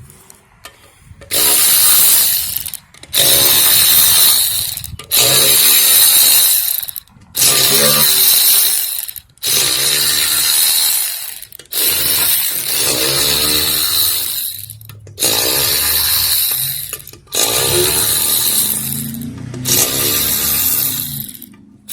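A power tool run in about nine bursts of roughly two seconds each, with short pauses between them. Each burst starts with a rising whine as the motor spins up.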